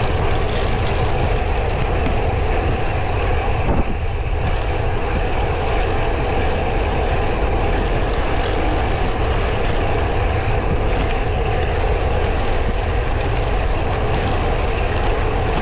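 Steady wind rumble on a handlebar-mounted camera microphone while a road bike is ridden at speed, mixed with the hiss of rolling along the road.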